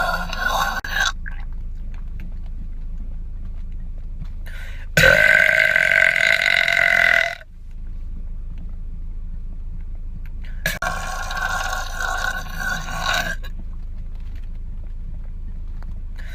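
A man's long, drawn-out belches with a weird, otherworldly tone: three of them, each about two seconds long. The first is already going at the start and ends about a second in; the second, about five seconds in, is the loudest.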